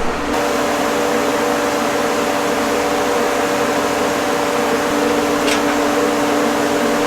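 Farm machinery running with a loud, steady drone and a constant hum that does not change.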